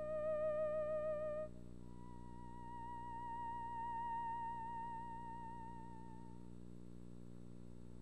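Theremin playing single held notes with vibrato: a note held until about a second and a half in, then a higher note that slowly fades away.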